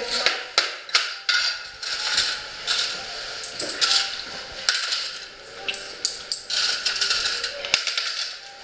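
Irregular sharp clicks and light clatter, a dozen or so scattered through the stretch, over a steady hiss.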